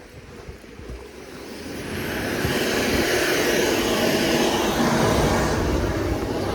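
Motor vehicle noise that swells up over the first two seconds and then holds steady, with a faint high whine.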